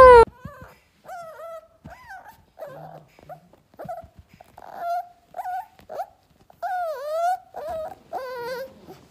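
Puppy whimpering in a string of short, high-pitched cries that bend up and down in pitch. At the very start, the tail of a loud cat meow cuts off.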